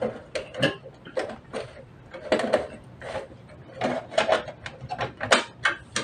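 Insulated electrical wire being pushed through red plastic conduit fittings into a metal junction box: irregular scraping, rustling and small clicks and knocks.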